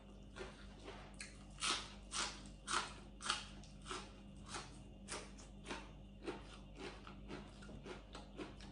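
Crunchy chewing of a mouthful of raw leafy greens, heard up close: a steady run of short crisp crunches about two a second, the strongest a couple of seconds in.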